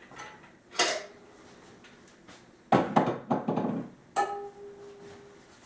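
Handling sounds on a wooden table: a single knock, then a short clatter of knocks. Near the end comes a sharp metallic clink that rings on briefly.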